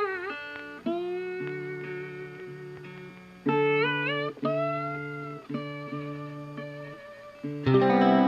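Background music: a guitar melody with bending, wavering notes over a repeating bass line, giving way to a fuller, louder passage near the end.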